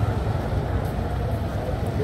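Busy street ambience: a steady low rumble of road traffic.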